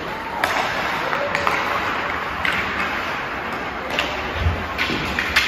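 Ice hockey play: sharp clacks of sticks on the puck and ice, about eight scattered through, over a steady hiss of skates and arena noise.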